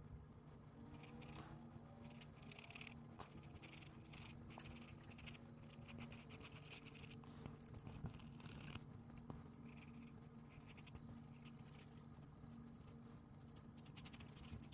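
Faint pencil strokes scratching on sketchbook paper, in quick runs through the first half and sparser later, over a steady low hum.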